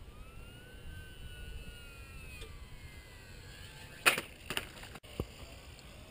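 Faint whine of a small electric RC foam plane's motor and propeller in flight, its pitch rising and then falling as it passes. A few sharp clicks and knocks about four seconds in.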